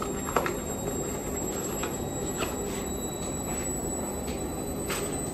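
Tumble dryer running with a steady hum, with a few light clicks and rustles of napkins being handled.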